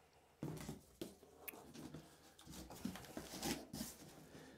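Faint, irregular rustling and soft knocks of a cardboard shipping box being opened and its packaging handled, busiest near the end.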